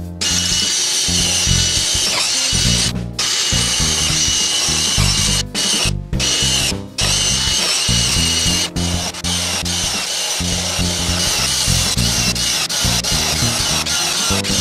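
Cordless drill running as it bores into a wooden block, with several brief stops, under background music.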